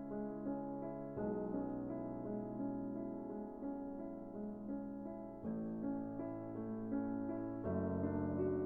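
Soft background piano music: sustained chords that change every few seconds, with no speech.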